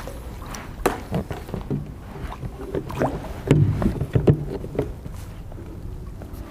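Scattered knocks and clatter of handling on board a Vibe Yellowfin 100 fishing kayak, with a busier cluster of knocks about halfway through.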